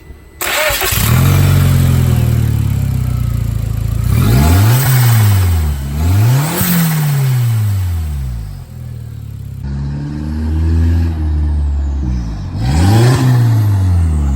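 A 2003 Volkswagen GTI's 1.8-litre turbocharged four-cylinder starting up and idling, then revved three times, its pitch rising and falling with each blip. This is its first start with a newly fitted aftermarket blow-off valve.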